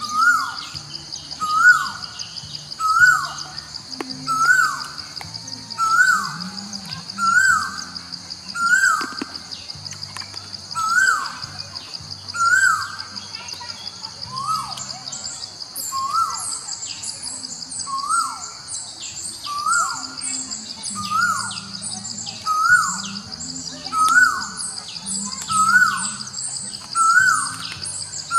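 A bird repeating one short note that slides down in pitch, about every second and a half, over a steady high-pitched drone. Soft background music with low sustained notes plays underneath.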